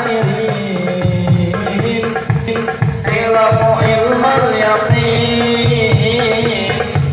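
A marawis ensemble performing: a voice sings a wavering, ornamented Middle Eastern-style melody over a busy pattern of hand-drum strokes.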